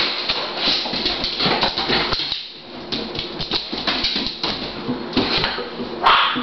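Doberman's claws clicking and scrabbling on a vinyl-tile floor as she runs, a rapid irregular clatter, with a brief louder noise about six seconds in.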